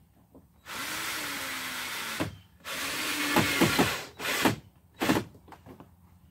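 Electric drill driving a screw through a flattened PVC rib into the plastic barrel hull. There are two runs of about a second and a half each, then a few short bursts as the screw is snugged in.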